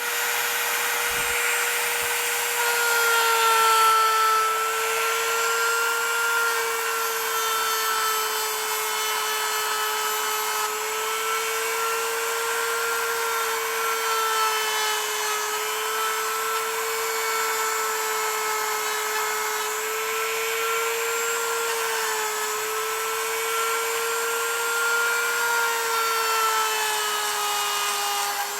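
A small high-speed power tool running steadily, its motor giving a continuous whine that sags slightly in pitch now and then as it meets load, over a constant abrasive hiss, typical of grinding or sanding the steel of the cleaver being restored.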